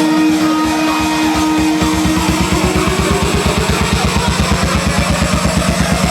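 Rock music with guitar. A fast, even pulsing beat comes in about a second and a half in, and one note slowly rises in pitch over the rest.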